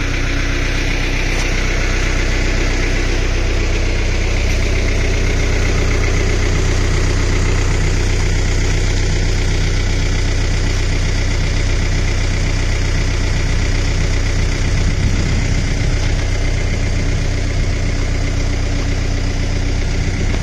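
Tractor engine idling steadily, close by, with an even low hum and no change in speed.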